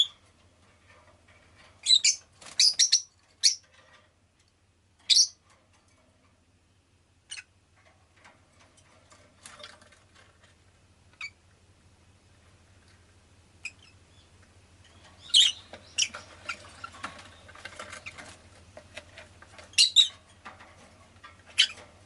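Rosy-faced lovebird giving short, sharp, high chirps in scattered clusters: a quick run of them about two to three and a half seconds in, a single one around five seconds, and more near the end. Faint scratchy rustling comes between the later chirps.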